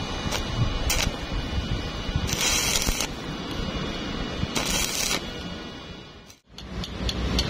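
Stick-welding arc on a steel bar crackling and sputtering, with louder bursts of sizzle every second or two. It fades out about six seconds in.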